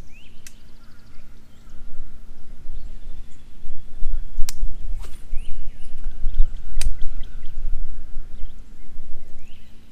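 Outdoor lake ambience: small birds chirping over a low rumbling noise and a steady low hum. Three sharp clicks come about half a second in, midway and near seven seconds.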